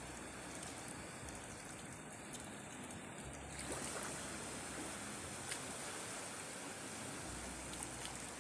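Shallow seawater sloshing and trickling at the shoreline, a steady watery hiss with a few faint clicks that grows a little louder and brighter about three and a half seconds in.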